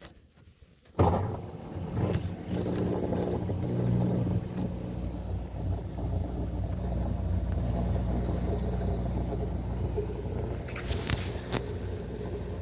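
Washing machine running with a steady low motor hum and rumble, starting abruptly about a second in.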